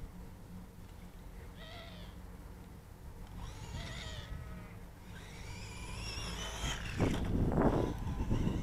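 Electric motor of a 9115 RC monster truck whining in short bursts as it drives across the lawn, rising in pitch as it speeds up. Near the end it comes close, with a louder rough rumble of its tyres and chassis over the grass.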